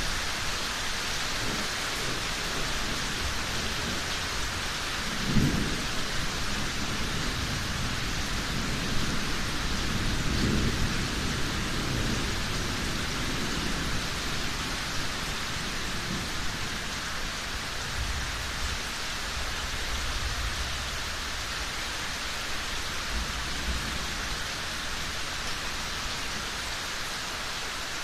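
Steady heavy rain with thunder: a sharp crack about five seconds in, then a longer rolling rumble a few seconds later, and fainter low rumbles after that.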